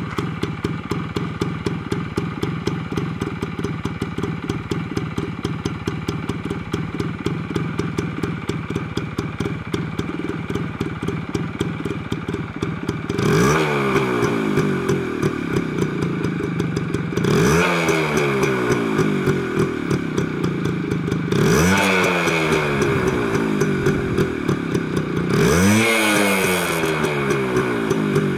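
TVS Suzuki Max 100 R's two-stroke single-cylinder engine idling steadily, then revved by hand four times, about four seconds apart, each rev rising and falling back to idle.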